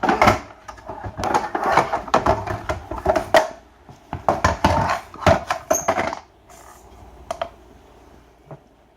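Short cut pieces of scrap copper clattering as they are handled and dropped, a fast jumble of metal clanks and rattles for about six seconds. The sound then dies down to a few stray ticks.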